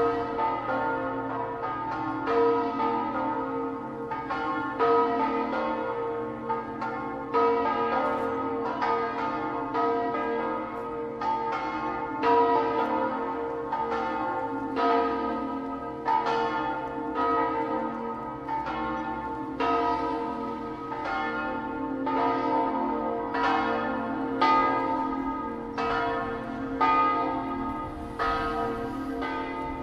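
Several church tower bells ringing together, a stroke about every second, each one ringing on under the next.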